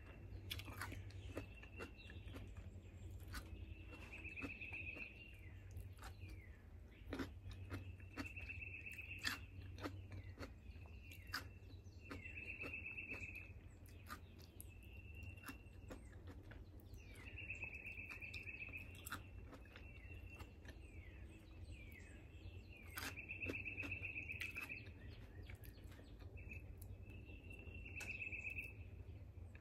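A songbird singing, repeating a short high trill of about a second every few seconds, with brief downslurred notes between. Close by, crisp crunching and chewing of cucumber and small sharp clicks are heard.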